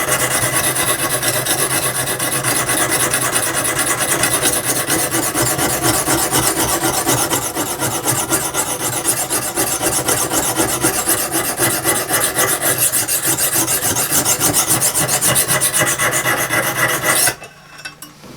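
Oiled coarse Lansky hone rasping back and forth along a steel saw-blade edge, in rapid, steady strokes that grind metal off the bevel. The scraping stops abruptly near the end.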